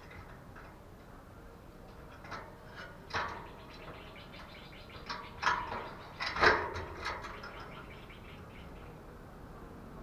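A caged spotted dove moving about its wire cage, making a few sharp knocks and rattles. The loudest knock comes about six and a half seconds in.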